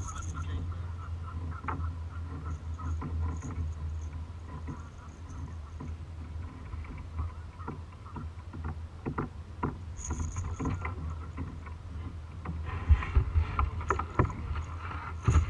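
Steady low rumble of water and wind against a plastic kayak's hull. From about nine seconds in there are scattered clicks and knocks, growing busier and louder near the end as a landed bass is handled over the net.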